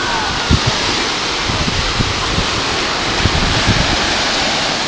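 Steady wash of ocean surf, with wind buffeting the microphone in scattered low thumps.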